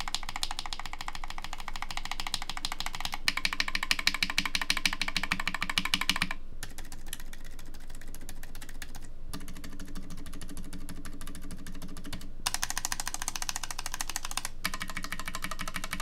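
Rapid typing on mechanical keyboard switches mounted in a carbon fiber plate and a brass plate, in short runs that alternate between the two plates. The first runs are Thic Thock Marshmallow switches (filmed, lubed with 205g0). The middle runs are Boba U4 silent tactile switches, clearly softer and more muted. The last runs are stock C³equalz X TKC Kiwi switches, which are brighter again.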